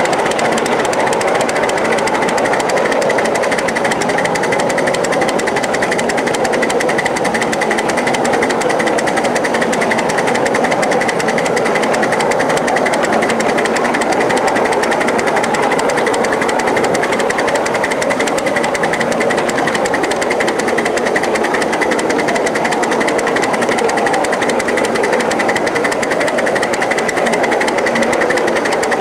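1-inch scale live-steam 0-4-0 switcher locomotive running along the track with the train, a steady, rapid mechanical clatter that holds unchanged throughout.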